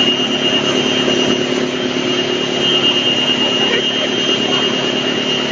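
Rotex YBX218 drum wood chipper running, a steady machine drone with a constant high whine over it.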